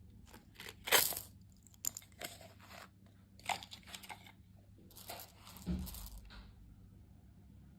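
Crunchy sweets being bitten and chewed close to the microphone: a run of short, irregular crunches, with quiet gaps between them.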